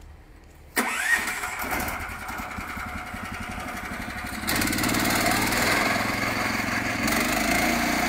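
Junior Peterson swingblade sawmill's engine starting about a second in and running steadily, then getting louder about halfway through as it picks up.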